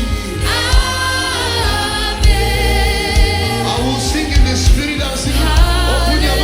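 Gospel praise-and-worship music: a choir and lead singers holding sung notes over bass and a steady drum beat.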